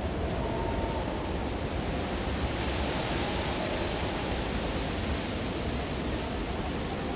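Steady rushing mountain wind, the high hiss swelling about three seconds in, with a faint wavering whistle underneath.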